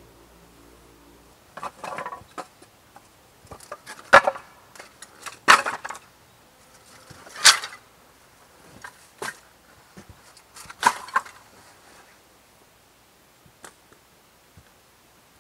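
Dry split kindling and wood being handled: a handful of short scrapes and sharp wooden knocks at irregular intervals, then only a few faint ticks near the end.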